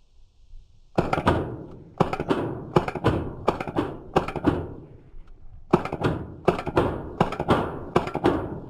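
Rapid semi-automatic fire from a .22 LR AR-style rifle: sharp shots at about three or four a second, each with a short ringing tail. They come in two strings, starting about a second in, with a short pause a little after the middle.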